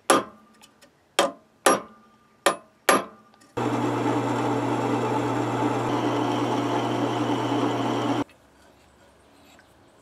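A hammer strikes a punch five times in quick succession, marking a hole through a guide block. Then a drill press runs steadily with a low hum for about four and a half seconds as its bit drills the hole, cutting off suddenly.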